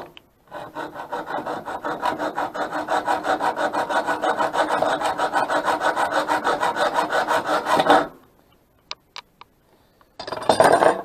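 Hacksaw cutting through a small metal screw with quick, even back-and-forth strokes that stop about eight seconds in. A few light clicks follow, then a short burst of scraping near the end.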